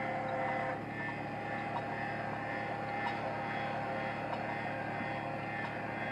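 A boat's motor running at a steady speed, a constant drone with a steady whine over it.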